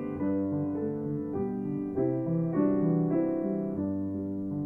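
Slow, gentle piano music: held chords and melody notes that change about every half second.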